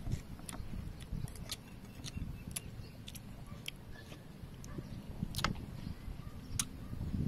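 Metal spoons clicking against a ceramic soup bowl as food is scooped and eaten: sharp clicks every second or so, over a low steady background.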